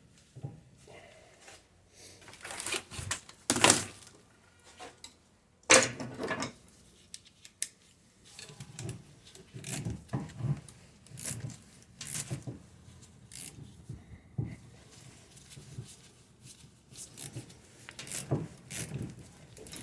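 Metal hand tools and brake parts clinking and rattling as they are handled, with two louder sharp clanks a few seconds in and a run of short clicks after.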